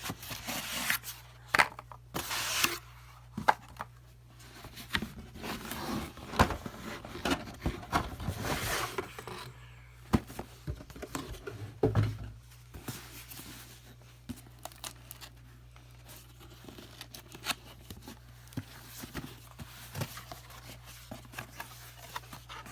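Packaging being handled and pulled open: rustling and tearing with scattered clicks and knocks, busiest in the first half.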